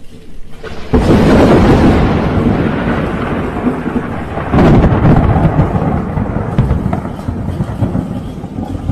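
Thunder: a loud clap about a second in that rolls into a long rumble, a second loud peal near the middle, then rumbling that slowly dies away.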